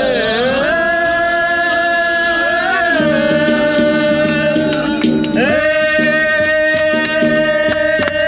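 Marathi powada (heroic ballad) sung by a male voice, holding long drawn-out notes. Instruments join about three seconds in, and percussion taps come in about two seconds later.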